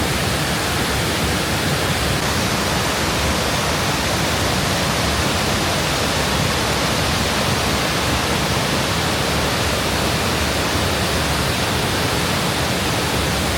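Steady, unbroken rush of falling water from heavy rain and the town's waterfall.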